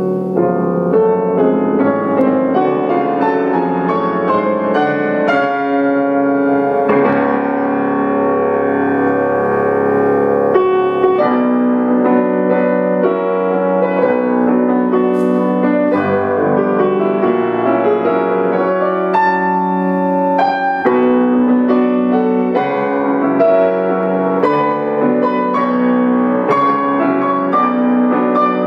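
Grand piano played solo: a classical-style fantasy, with chords and notes sustained under a moving melody.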